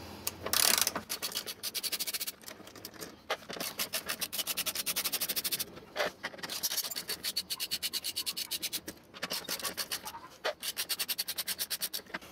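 Socket ratchet with an 11 mm socket clicking in fast, even runs as bolts are backed out, in several spells with short pauses between them.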